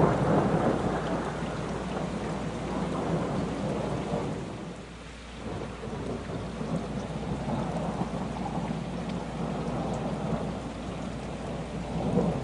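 Thunder rumbling over steady rain. A loud rumble at the start fades away by about five seconds in, then another long rumble rolls in and swells again near the end.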